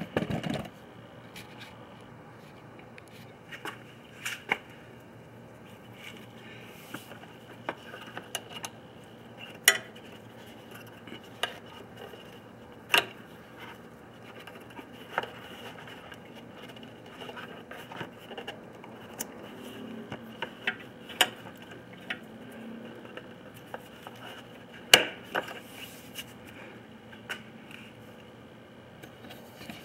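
Irregular sharp clicks, light metallic knocks and scrapes, a few much louder than the rest, from hands working on a lowering link at a car's front suspension.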